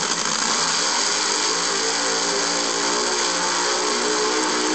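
Recorded funny car engine sound effect played through the small built-in speaker of a Hot Wheels Legends to Life display. It is a steady mechanical running noise, with a pitched hum joining about a second and a half in.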